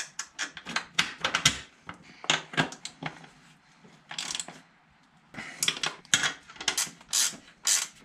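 Hand ratchet clicking in short bursts as a nut is run down on a cab mounting bolt. The clicks are irregular at first, then settle into even bursts about two a second.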